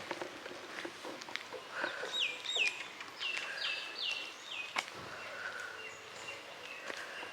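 A bird calling: a quick series of about six short whistled notes, each sliding down in pitch, with faint scattered ticks and taps behind them.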